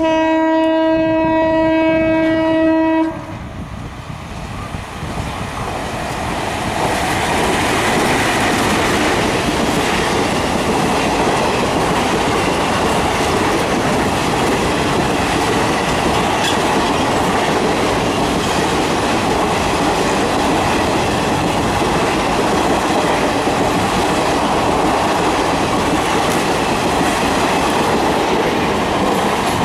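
WAM-4 electric locomotive's horn held in one long steady blast that cuts off about three seconds in. Then the locomotive and its rake of passenger coaches roll past, the rumble and wheel clatter swelling over a few seconds and staying steady.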